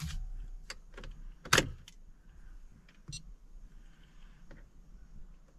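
Scattered clicks and knocks of handling inside a truck cab, the loudest a sharp knock about a second and a half in. A steady electronic beep tone cuts off just after the start.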